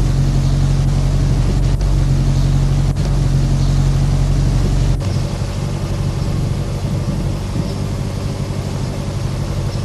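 Car engine idling, heard from inside the cabin as a steady low hum. The low hum thins out abruptly about five seconds in, and a few faint clicks come in the first half.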